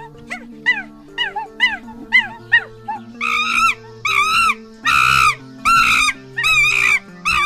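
An animal's high-pitched calls: short rising-and-falling yips about two a second, then from about three seconds in longer, louder arched whining calls, over steady background music.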